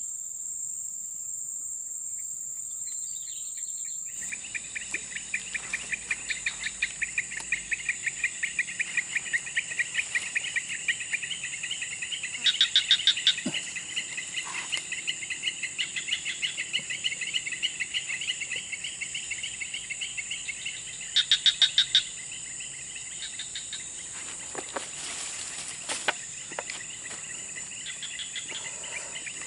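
Insects calling: a steady high-pitched buzz, joined about four seconds in by a rapid, evenly pulsing chirp. Two short, louder trills break in, one about a third of the way through and one about two-thirds through.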